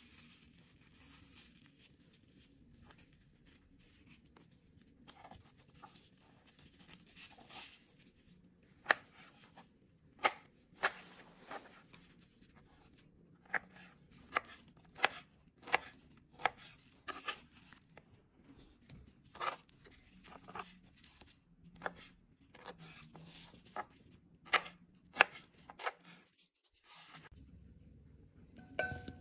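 Kitchen knife slicing and scoring ripe mango on a plastic cutting board: soft cutting sounds at first, then irregular sharp knocks as the blade meets the board.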